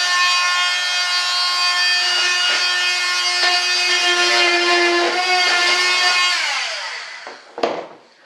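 A high-speed power cutter trimming cured fiberglass: a steady high-pitched whine with many overtones. About six seconds in it is switched off, and its pitch falls as it winds down, followed by a single sharp knock.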